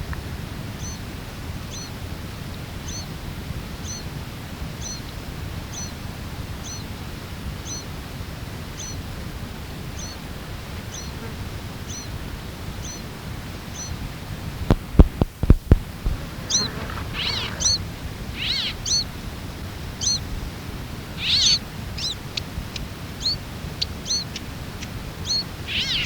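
Mourning sierra finch chick calling: one short, high, screechy note repeated evenly about every 0.7 s. About fifteen seconds in there is a burst of loud knocks. After that the high calls come louder, faster and more varied.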